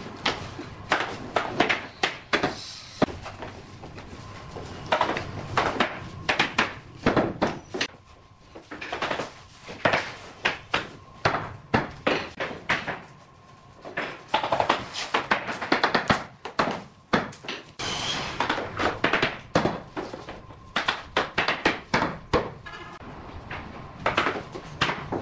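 Hammer knocking bamboo tongue-and-groove floorboards into place, in quick runs of sharp knocks with short pauses between.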